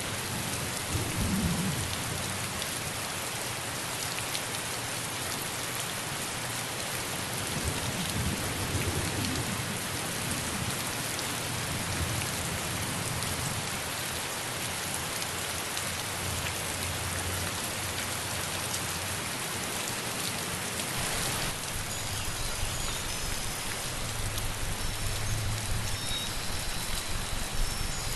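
Steady heavy rain falling, an even hiss of drops, with a low rumble swelling up now and then like distant thunder. A few faint, thin high tones come in near the end.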